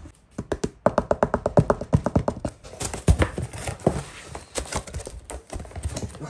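Cardboard box and plastic air-cushion packing being handled while the box is opened: a quick run of sharp taps and clicks, then crinkling and rustling of the plastic from about three seconds in.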